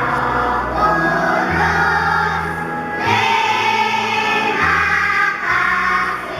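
Kindergarten children's choir singing together over an instrumental accompaniment that holds steady low bass notes, changing every second or so.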